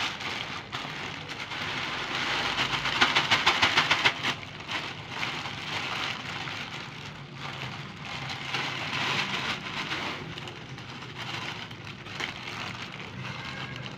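Plastic bags crinkling and rustling as crushed dry egg noodles are shaken out of a noodle packet into a clear plastic bag, the hard noodle bits rattling and pattering against the plastic. The loudest part is a quick run of shakes about three seconds in.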